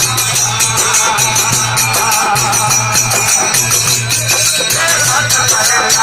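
Desi bhajan (devotional folk song) music: a singing voice over a steady rhythm of jingling, shaken percussion.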